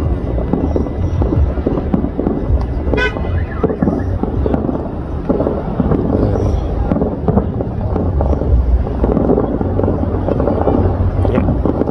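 Aerial fireworks bursting and crackling over a steady din of many voices, with a short toot about three seconds in.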